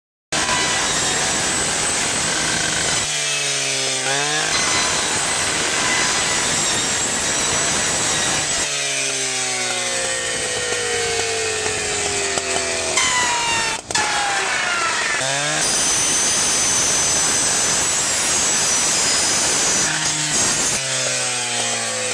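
Gas cut-off rescue saw fitted with a Cutters Edge Bullet Blade, running flat out and cutting into a sheet-metal roof vent. The engine's pitch drops several times as the blade bites and loads it down, then climbs again between cuts.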